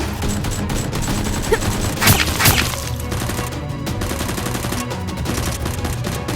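Rapid gunfire sound effects, a dense stream of shots, over action background music. A couple of louder bangs come about two seconds in.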